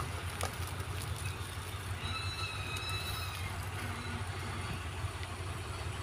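Steady low machinery rumble, like a large engine running, with a thin high squeal that starts about two seconds in and lasts over a second.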